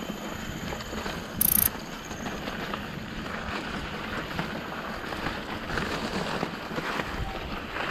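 Santa Cruz Nomad full-suspension mountain bike rolling down a dirt singletrack: steady tyre noise with the chain and frame rattling and ticking over bumps. A brief loud hissing burst about one and a half seconds in.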